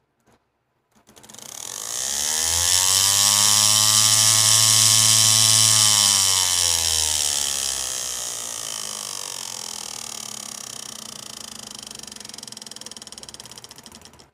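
Hard disk drive spindle motor, a small brushless motor driven by a hobby RC speed controller, spinning up about a second in with a rising whine and a strong high hiss. It runs at high speed for a few seconds, then winds down with a slowly falling, fading whine.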